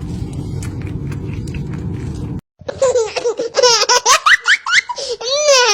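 A young child laughing hard in rapid high-pitched bursts, starting about two and a half seconds in after a sudden break from a steady low rumbling noise.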